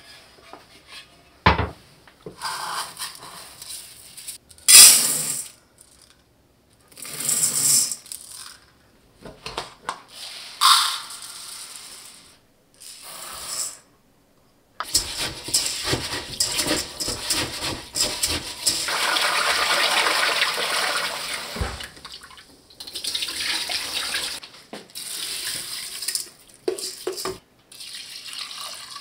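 Brown rice being prepared: several short rustling scoops of grain from a rice bin, then water running and splashing over the rice for several seconds from about halfway, and water poured from a bowl into a pressure cooker near the end.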